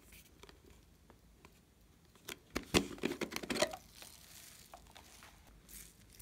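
Small foam balls rattling as they are tipped out of a plastic container onto slime, with sharp clicks of the plastic container. The rattle comes in one busy burst of about a second and a half, starting a little over two seconds in.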